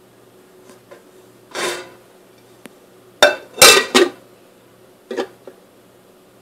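Kitchen dishes being handled: a short scrape, then a few sharp clattering knocks of a bowl or dish set down. The loudest cluster comes about three and a half to four seconds in, with two lighter knocks a second later.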